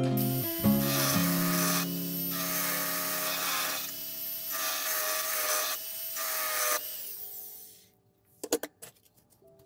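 High-speed rotary engraving handpiece running with its pointed bit cutting into a silver spoon handle, a steady whine under a hiss that dips briefly a few times as the bit is lifted, engraving the maker's signature. The cutting fades out about seven seconds in.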